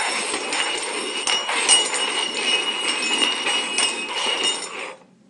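Small stainless steel cups shuffled quickly over a hard floor: a dense scraping and clinking of metal against the floor and each other, with a ringing note from the cups. It stops suddenly about five seconds in as the cups come to rest.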